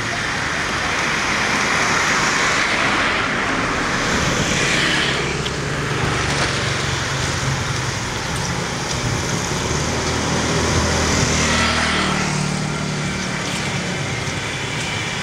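Street traffic: motor scooters and a car passing close by on a narrow road. Two passes swell and fade, the later one with a low engine hum.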